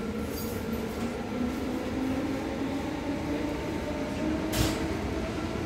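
Inside an Sgmm sprinter electric train pulling out of a station: a steady running hum with motor tones rising slowly in pitch as it gathers speed, and a single sharp knock about four and a half seconds in.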